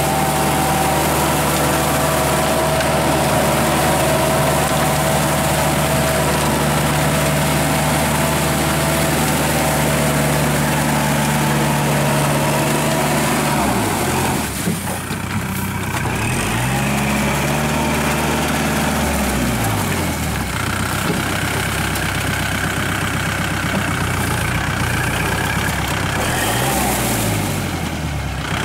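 Kubota L5018 tractor's diesel engine running steadily while it drives a Maschio rotary tiller through wet paddy mud. About halfway through, the engine note drops and climbs back up several times as the engine speed sags and recovers under the tilling load.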